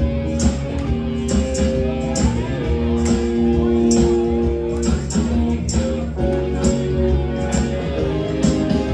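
Live cover band playing in a bar: guitars and keyboard holding sustained notes over a steady beat of about two drum hits a second.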